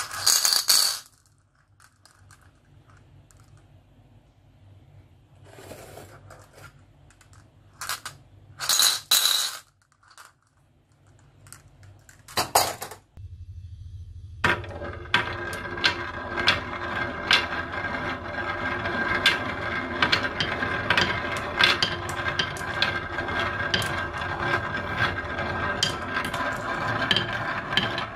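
Glass marbles clinking in a few short bursts, then, from about halfway, many glass marbles rolling down grooved wooden HABA tracks: a continuous rolling rumble with dense clicks as they knock against the wood and each other.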